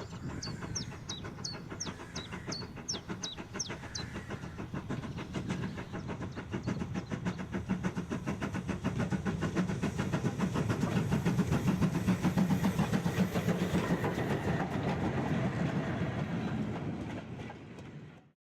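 Train running along the rails with a fast, even clickety-clack that builds to its loudest about twelve seconds in, then eases and cuts off abruptly. A series of short, high, falling chirps sounds over it in the first few seconds.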